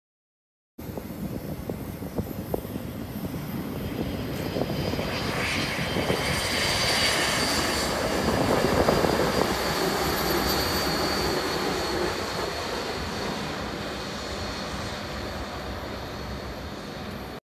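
Jet engines of a four-engined BAe 146 airliner running as it taxis on a gravel runway: a steady rush with a high whine. It grows louder to a peak about halfway through, then fades as the aircraft turns away, and it starts and stops abruptly.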